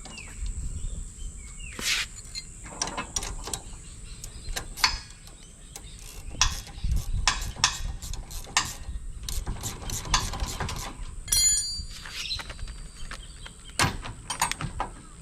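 Hand ratchet wrench clicking in short, irregular runs as the bolts on a caravan's tow hitch are snugged up to take up the slack, with occasional metal knocks.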